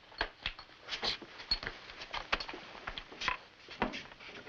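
Irregular light knocks and scuffs of people stepping and shifting on a wooden floor, in a small room.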